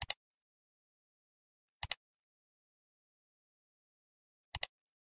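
Computer mouse click sound effect, heard three times: each a quick double click of press and release, near the start, a little under two seconds in and near the end, with dead silence between.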